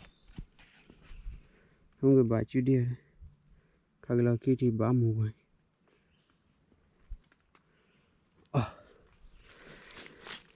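Insects singing in one steady, unbroken high-pitched tone. A man's voice speaks in two short bursts a few seconds in, and a brief sharp sound comes near the end.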